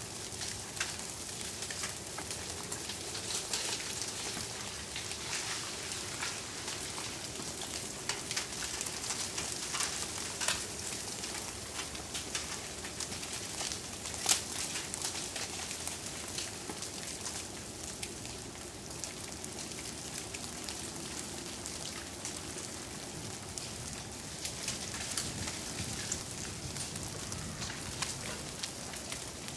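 Steady pattering and crackling from ice-coated trees shedding drips and bits of ice, with many small ticks and one sharper click about fourteen seconds in.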